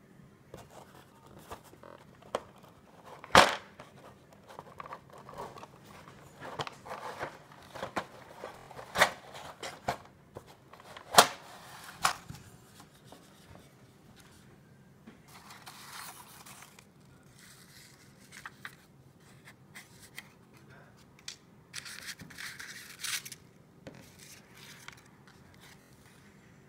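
A cardboard model-kit box and its paper sheets being handled: scattered sharp knocks and taps as the box is opened, the loudest about three seconds in and about eleven seconds in, then softer rustling of paper instruction and decal sheets.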